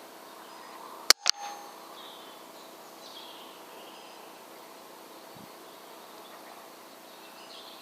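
Air rifle shot: one sharp crack about a second in, with a second, softer knock a fraction of a second later, followed by a few faint high chirps.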